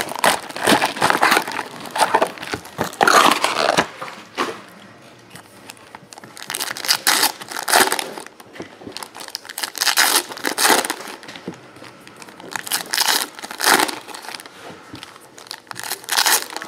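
Plastic shrink-wrap crinkling as it is torn off a trading-card box, then foil card packs being torn open and crinkled by hand, in irregular bursts.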